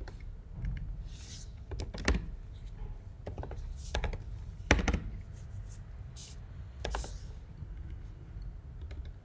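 Keystrokes on a computer keyboard: separate clicks at uneven spacing, about one a second, with the sharpest about three-quarters of the way through. A steady low hum runs under them.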